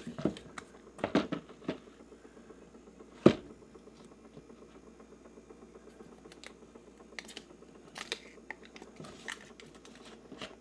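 Scattered clicks, taps and knocks of food packages being handled on refrigerator shelves, with one sharper knock about three seconds in.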